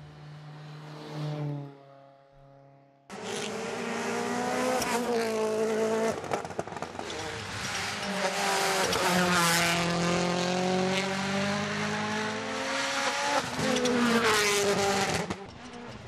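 Hyundai i20 N Rally1 car's turbocharged four-cylinder engine at full racing pace, its pitch climbing and dropping again and again through gear changes and braking, with tyre noise on tarmac. It cuts in abruptly about three seconds in, after a fading, quieter passage.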